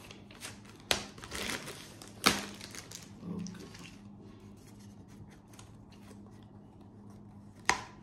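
Clear plastic bag crinkling as it is handled, with sharp taps or knocks, the loudest about two seconds in and another near the end.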